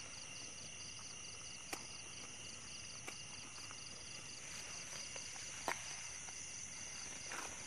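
A steady chorus of insects, such as crickets, with a high continuous whine and a rapidly pulsing trill, broken by a few sharp clicks or knocks.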